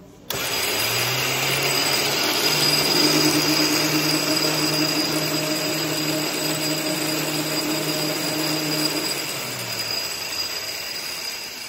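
Rolls-Royce Merlin 25 V12 with its cylinder heads off, motored over by an electric drive rather than running on fuel. A steady mechanical whine starts abruptly and quickly comes up to speed. It holds steady, then winds down and slows near the end.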